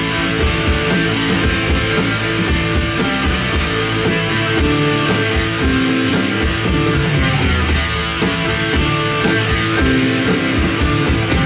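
Live band jamming: electric bass guitar and drum kit playing together at a steady beat, in a rock style.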